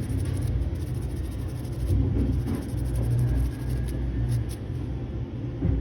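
Small brush scrubbing inside a phone's petrol-wetted charging port to clean out dust, a light scratching over a steady low background rumble.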